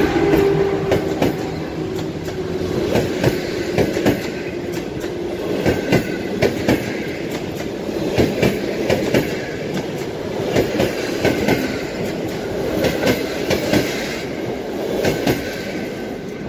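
Passenger carriages of a departing intercity train rolling past, their wheels clicking over rail joints in quick pairs and groups over a steady rumble. Near the end the sound thins as the last carriage goes by.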